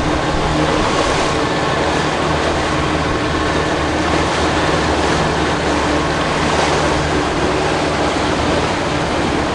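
A boat engine running steadily under way, with wind and rushing water across the microphone.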